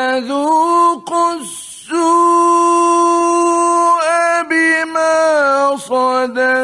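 Solo male voice reciting the Quran in a slow, melodic tajwid style: long held notes with ornamented turns between them, easing off briefly about a second and a half in before a long steady note.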